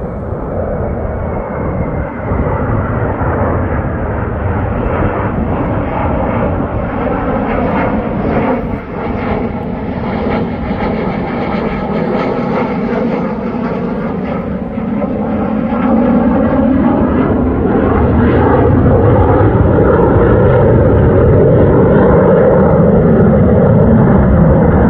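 Fighter jet engine roar as the jet flies in on approach with its landing gear down. It is a steady roar with a slowly shifting tone, growing louder about two-thirds of the way through.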